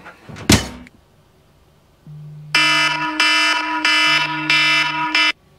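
A sharp knock about half a second in, then an iPhone timer going off at zero: the phone buzzes in pulses of about a second and a loud repeating alarm tone plays for nearly three seconds, then cuts off suddenly.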